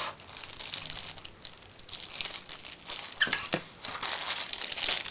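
Packaging crinkling and rustling in irregular bursts as items are handled and lifted out of a phone's retail box.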